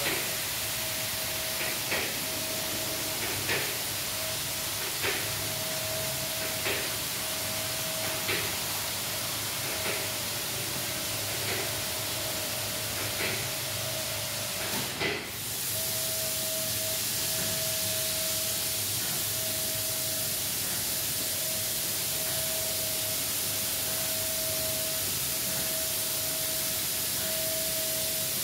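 Automatic rollover car wash machine running: a steady hiss of water spray over a steady mechanical whine, with a sharp tick about every second and a half through the first half. About halfway there is a brief break, after which the hiss and whine carry on evenly.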